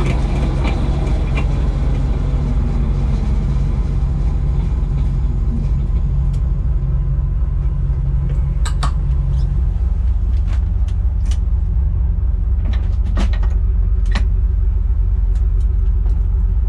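Light helicopter's engine and rotor running steadily on the helideck after landing: a loud low drone. About ten seconds in, one of its hum tones drops away, and several sharp clicks come in the second half.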